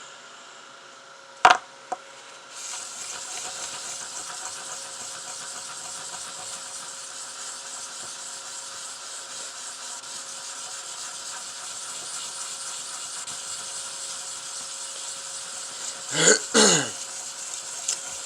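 Wet sandpaper rubbed by hand over a small silver pendant in circular strokes: a steady scratchy hiss that starts about two and a half seconds in, after a sharp knock. A brief loud vocal sound comes near the end.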